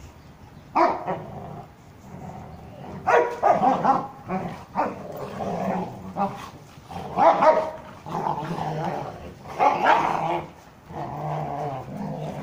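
Rottweilers play-fighting: sharp barks in bursts, a few seconds apart, over low, drawn-out growling.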